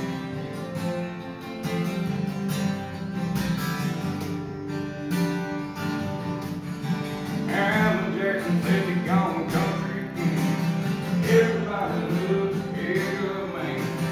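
Two acoustic guitars playing an instrumental break in a country song, steady strummed chords, with a higher, wavering melody line coming in over them about halfway through.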